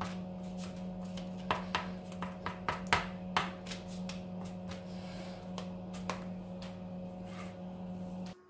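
A fork pricking puff-pastry squares on a parchment-lined baking tray, its tines tapping through the dough onto the tray in quick, irregular taps, several a second. The taps are thickest in the first half and die out about six seconds in, over a steady low hum.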